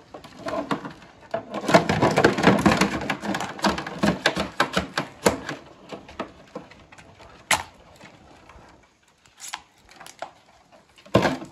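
A kitchen knife cutting into a lobster's shell on a plastic cutting board as the lobster is killed: a dense run of rapid clicks and crunches, then a few separate sharp clicks.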